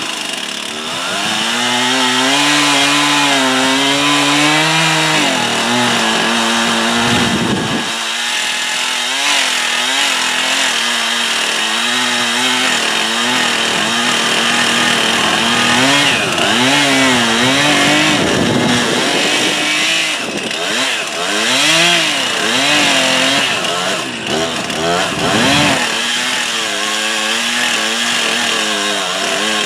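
STIHL chainsaw cutting into a tree trunk. The engine holds a steady high pitch in stretches, and its pitch dips and rises again and again as the chain bites into the wood and frees up.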